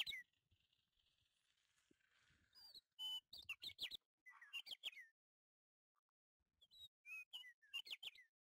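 A small songbird chirping: clusters of quick, downward-sliding twitters, about three groups, with silence between them.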